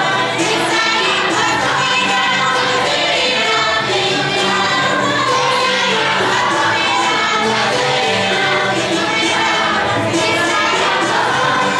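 A choir of many voices singing together, steady and without a break.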